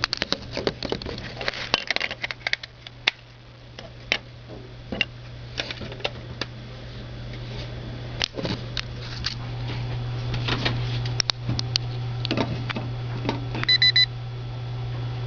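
Scattered clicks and taps of hand-held equipment being handled and its buttons pressed, over a steady low hum, with a quick electronic double beep near the end from the temperature meter used to take a reading.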